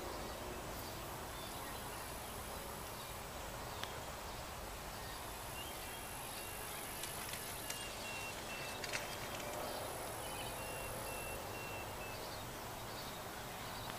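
Open-field summer ambience: insects shrilling at a high pitch in spells of a few seconds each, over a steady outdoor hiss. There are a few faint clicks.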